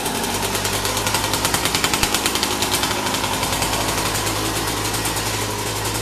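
Gas Gas two-stroke single-cylinder dirt bike engine running just after being started, with a fast even firing beat. It is a little uneven in the first couple of seconds, then settles into a steady idle.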